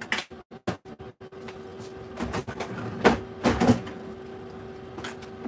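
Kitchen clatter: a quick run of light knocks of cookware, then a few heavier bumps and rattles of a cabinet about two to four seconds in, over a steady low hum.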